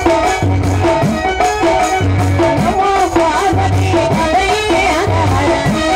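Live kolatam folk music, amplified through loudspeakers: a wavering melody over a steady percussion beat, with a low rising drum note that returns about every one and a half seconds.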